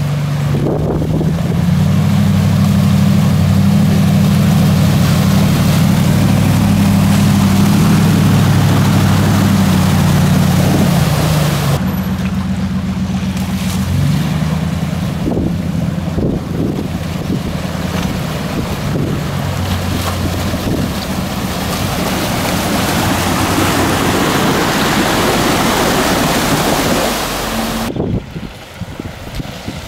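Toyota Hilux pickups driving slowly through a flooded ford. Their engines run steadily under the rush of water pushed aside by the wheels, the engine loudest in the first half and the splashing water louder later.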